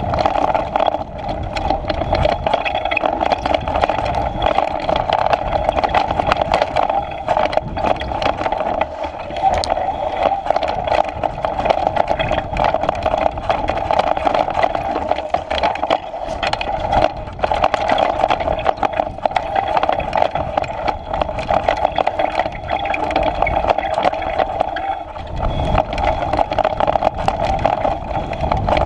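Mountain bike riding fast down a dirt trail: a steady run of rolling noise, broken by many quick rattles and knocks as the bike bounces over roots and stones.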